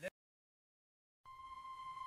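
Dead silence, then, about a second in, a steady high electronic tone with a ringing edge fades in and holds its pitch: an edited-in sound effect.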